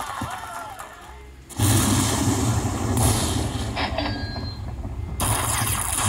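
Aristocrat High Stakes Lightning Link slot machine playing its win celebration sound as the win meter counts up after the free spins. It starts suddenly about a second and a half in, with a deep low rumble under higher electronic effects.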